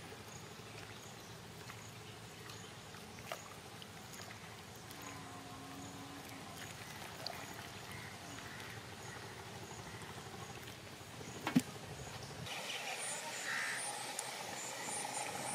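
Faint outdoor ambience with small high bird chirps repeating, a sharp knock about three quarters of the way through, and the background growing brighter and a little louder near the end.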